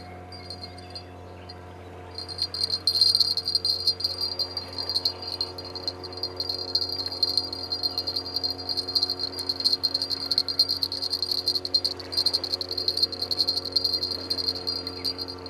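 A cricket chirping in a fast, continuous high trill that starts about two seconds in, over a steady low hum.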